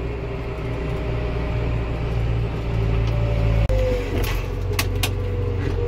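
John Deere tractor running steadily, heard from inside its cab while the front loader lifts a pair of round straw bales. A thin whine sits over the engine hum and shifts lower about three and a half seconds in, when the engine note changes too. A few light clicks follow near the end.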